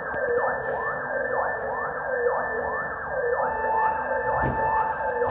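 Violin playing siren-like glissandi, many overlapping slides sweeping up and down and repeating about once a second. About three and a half seconds in, a steady held note joins above the sweeps.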